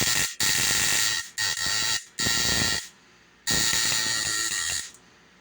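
Taser-driven electric sparks crackling and buzzing across the metal points of a homemade lightning stool, in about five bursts of half a second to a second and a half with short gaps between. The points are not all firing at once because they are not set exactly the same distance apart.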